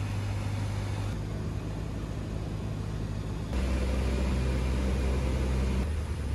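Cessna 152's four-cylinder Lycoming piston engine and propeller droning steadily inside the cabin, with air noise, on approach to land. The drone jumps abruptly in character a few times and is louder from about halfway.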